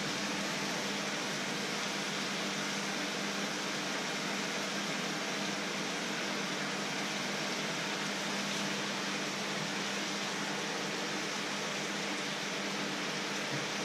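Water at a hard rolling boil in a wide pan on an electric hob: a steady hiss with a low hum under it.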